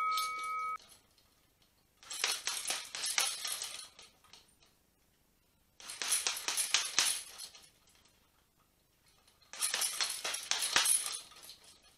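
Boxing gloves striking a heavy punch bag in three quick flurries of punches, each about two seconds long and a few seconds apart. A boxing bell's ring dies away in the first second.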